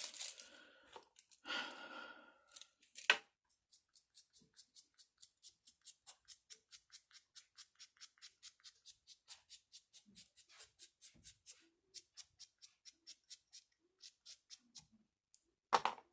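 Quick, even scraping strokes, about three a second, as powder is scraped off with a tool; a single loud knock near the end.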